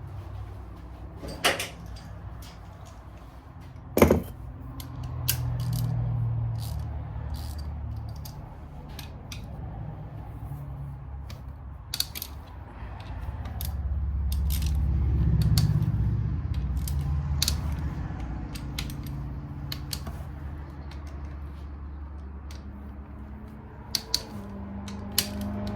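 Scattered sharp clicks and clinks of a hand wrench and metal engine parts as the 10 mm bolts on the top end of a Suzuki LTR 450 engine are loosened. The loudest click comes about four seconds in, over a low rumble that swells twice.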